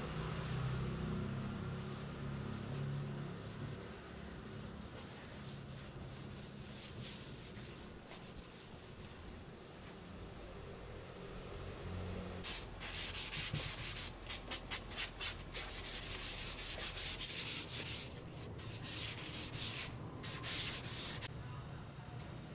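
Hand sanding of a wooden tabletop with an abrasive pad: rapid back-and-forth scratchy strokes that start about halfway through and stop shortly before the end. Before them, a quieter cloth wiping finish over the wood.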